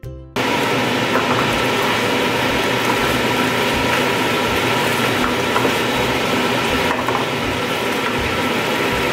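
Cooked chicken and vegetables sizzling in a non-stick frying pan while being reheated and stirred with a spatula: a loud, dense crackling hiss that starts abruptly about half a second in and holds steady.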